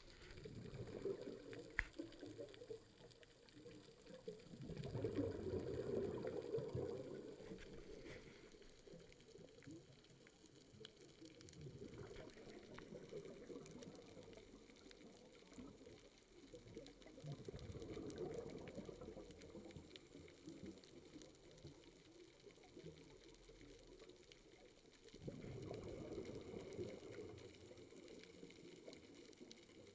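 Scuba diver's exhaled bubbles from the regulator, heard underwater as faint bubbling that swells and fades about five times, several seconds apart, the strongest a few seconds in.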